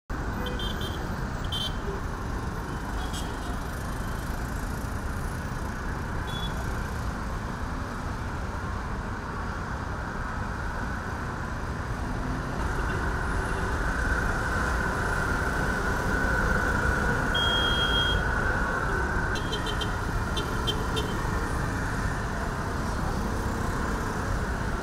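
Street traffic: a steady mix of engine and road noise from passing motor tricycles and cars, swelling for several seconds past the middle, with a short high beep a little after that.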